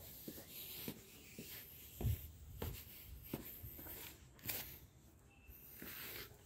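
Footsteps going down steps and onto a paved path, a series of dull thumps about two thirds of a second apart, with rubbing from the hand-held phone.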